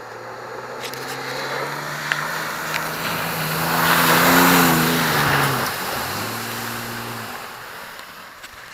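A truck's engine running under power as it drives through a mud puddle past the camera. A rush of splashing water and mud swells to its loudest about four to five seconds in. The engine note drops as the truck goes by, then runs steadily again.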